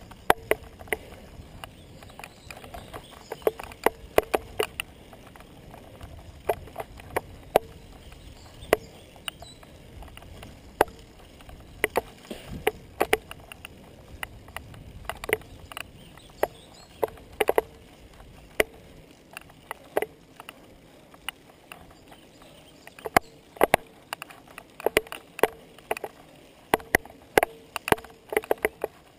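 Bicycle climbing a paved road: a low rumble of riding noise that fades about two-thirds of the way through, overlaid by sharp clicks and knocks roughly once a second, coming more thickly in the last few seconds.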